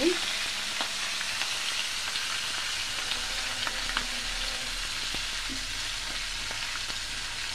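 Pangasius catfish pieces frying in hot oil in a nonstick pan: a steady sizzle with small scattered crackles and pops.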